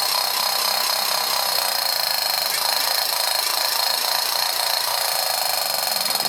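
Toy AK-47 gun firing on battery power, with a steady, rapid electric rattling buzz and a high whine.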